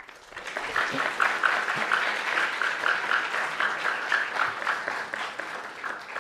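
Audience applauding, building up over the first second and tapering off near the end.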